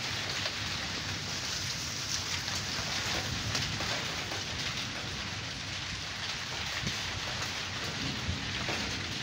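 Steady rain falling in a thunderstorm: an even hiss with many small, sharp drop hits scattered through it.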